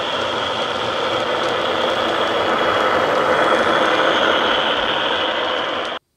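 Sound decoder in a Hornby HST model playing a Paxman VP185 diesel engine sound through its upgraded speakers, running steadily as the model passes; it cuts off suddenly near the end.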